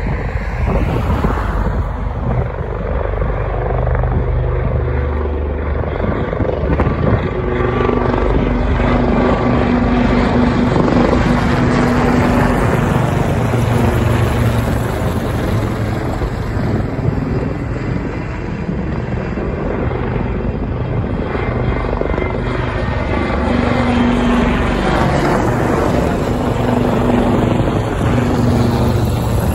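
Four AgustaWestland AW159 Wildcat helicopters flying past in formation: continuous rotor and engine noise with a steady low hum. It grows louder around the middle and again near the end as the helicopters come close, one passing almost overhead.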